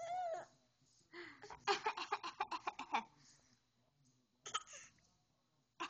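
Baby vocalizing: a short high squeal at the start, then a quick run of giggles, about eight a second for over a second, and a short rough burst about four and a half seconds in.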